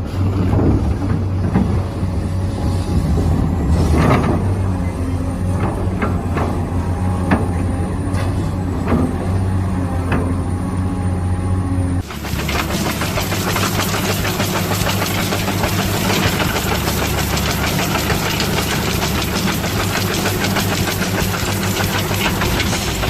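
Engine-like running sound from RC construction machines: a steady low hum with scattered clicks and knocks. About halfway through it changes abruptly to a denser, harsher running sound.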